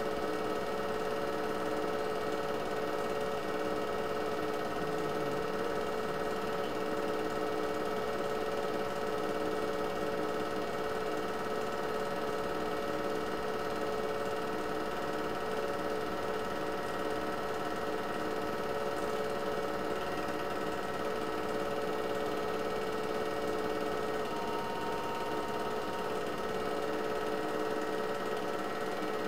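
8mm film projector running: a steady motor hum and whir with a light mechanical clatter, unchanging throughout.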